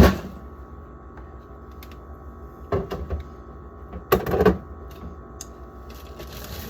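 Sauce bottles and jars clunking as they are set back onto fridge shelves: a sharp knock at the start, another a little under three seconds in, and a short clatter around four seconds in, over a steady hum.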